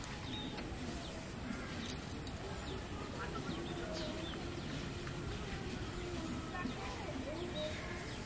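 Open-field ambience: a steady background hiss with scattered short bird chirps and faint, indistinct voices.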